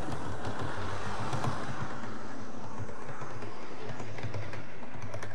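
00 gauge model train running along the track: a steady whirr of motor and wheels on the rails, with a few light clicks near the end.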